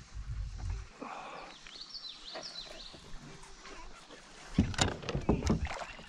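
Knocks and thumps from handling gear on a plastic fishing kayak. A loud cluster of sharp knocks comes about four and a half seconds in. A bird chirps briefly in the background about two seconds in.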